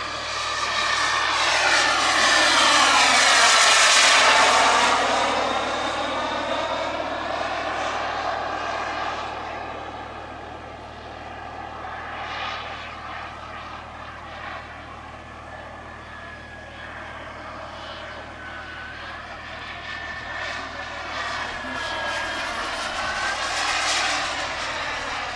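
Jetsmunt TS-166 model gas turbine of a Feibo Viper RC jet whining and rushing in flight. It grows loudest about four seconds in as the jet passes close, fades as it draws away, and swells again near the end.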